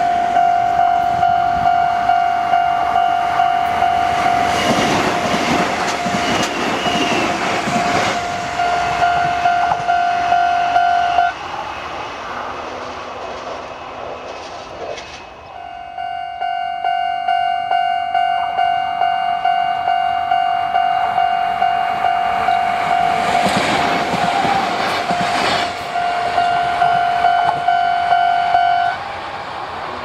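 Electronic level-crossing alarm bells ringing in a fast, steady repeating ding while trains rush through the crossing. The bells stop about 11 seconds in, start again about four seconds later for another train, and stop near the end as the crossing clears.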